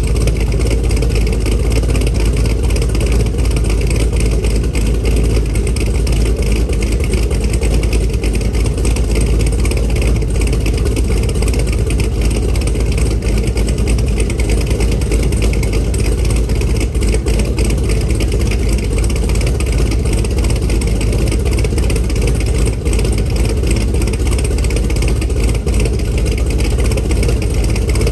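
Camaro SS's LS3 V8 engine running steadily, with a deep, even sound and no clear rise or fall in revs.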